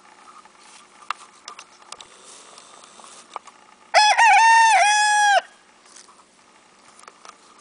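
Silver Gray Dorking rooster crowing once, about four seconds in: a short crow of about a second and a half, wavering at first, then held and dropping at the end.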